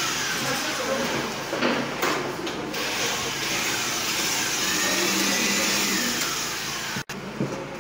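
Electric handheld air blower running steadily: a loud rushing noise with a whine, the kind used to blow dust out of a computer case. It cuts out briefly about seven seconds in.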